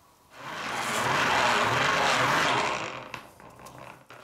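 Steel knife blade held against a spinning polishing wheel, giving a steady rasping hiss. It starts about a third of a second in and dies away near three seconds, followed by a few light clicks.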